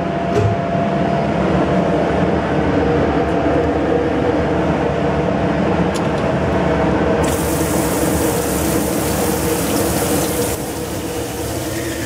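Water spray rinse running over a penetrant wash station, washing excess fluorescent penetrant off a pistol barrel. About seven seconds in, the spray turns much louder and hissier, then drops back about three seconds later.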